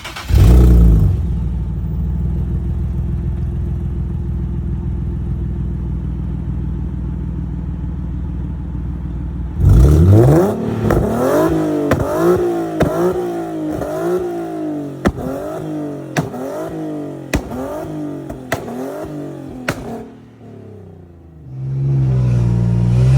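Nissan 370Z's 3.7-litre V6, breathing through resonated test pipes, held at steady revs for about nine seconds. It is then revved up and down over and over, with loud sharp exhaust cracks as it shoots flames.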